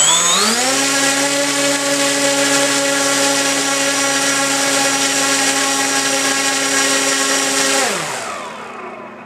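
Stock brushless electric motor and propeller of a Tower Hobbies F4U Corsair model plane run up on a test stand: a whine rising in pitch as it spins up, held steady for about seven seconds at high power, then winding down in pitch and fading near the end as the throttle is cut.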